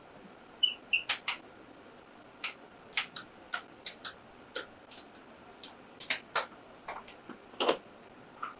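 Irregular light clicks and taps of hard parts and hand tools being handled during work on the motorcycle, with a couple of short high squeaks about a second in.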